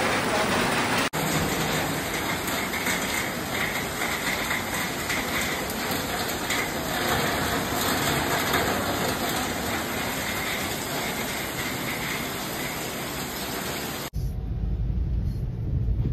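Heavy rain pouring with a dense, steady hiss, broken by two abrupt cuts. In the last two seconds it gives way to the low engine and road noise of a car driving through the rain, heard from inside the cabin.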